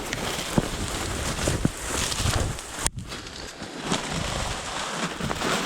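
Wind buffeting the microphone, with rustling and crackling of dry cattails and brush, broken by a brief dropout a little before the middle.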